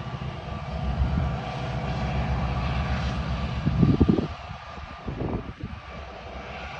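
Diesel locomotive engine running steadily, with a short louder low rumble just before four seconds in.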